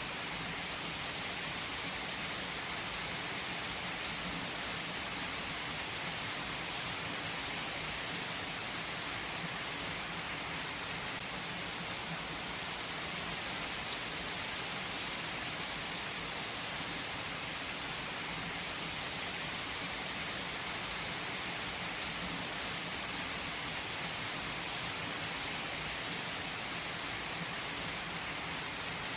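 Heavy rain falling steadily on trees, an even hiss with faint scattered drop ticks.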